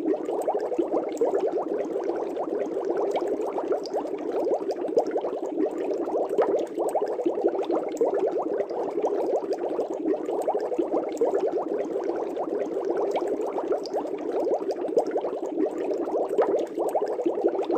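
Aquarium air bubbles rising through the water, a continuous dense bubbling at a steady level.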